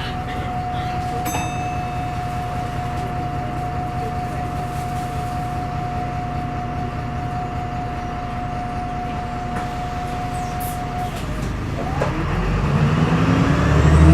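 VDL SB200 bus's diesel engine idling, with a steady high whine that cuts out about eleven seconds in. The engine then rises in revs, its pitch climbing and growing louder near the end.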